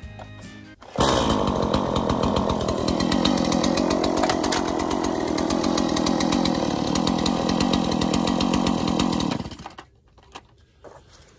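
Two-stroke Stihl chainsaw running: it comes in suddenly about a second in, runs steadily with a brief shift in engine pitch near the middle, then dies away about nine and a half seconds in.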